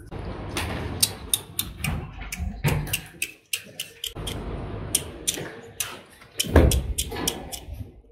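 Rottweiler puppies' paws and claws clicking and knocking on wooden steps and a bench: a quick, irregular run of sharp taps, with a heavier thump about six and a half seconds in.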